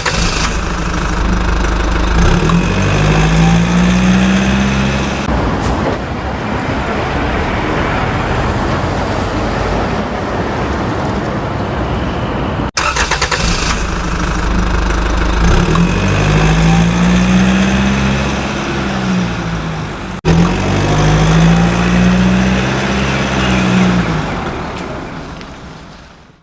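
A vehicle engine running and revving, its pitch rising and falling several times, in three stretches split by sudden cuts, fading out near the end.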